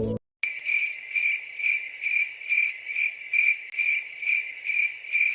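Cricket chirping, a high pulsed tone repeating about twice a second, starting after a brief silence about half a second in.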